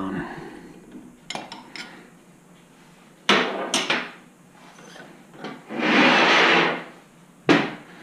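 Metal motorcycle fork parts knocking and clinking as they are handled and fitted, with a few sharp knocks. About six seconds in comes a steady rushing noise lasting a little over a second, the loudest sound.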